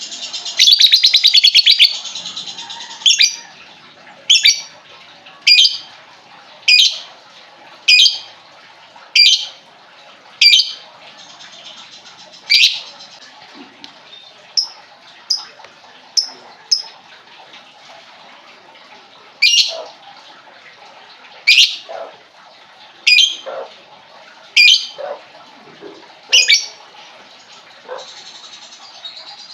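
Lovebird calling: a loud buzzy trill near the start, then a series of sharp, high, shrill chirps about one a second, a few softer chirps midway, and after a short pause another run of loud chirps.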